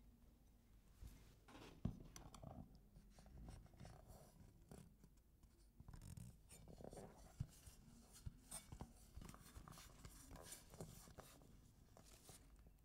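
Faint handling noise: a cake plate under a steel cake ring being turned and tilted on a tabletop. It gives soft scrapes and a few light knocks.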